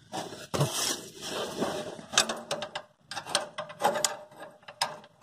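A run of irregular metal clicks, clanks and scrapes as the John Deere 37A snowblower's mounting hardware is worked into place by hand under the tractor.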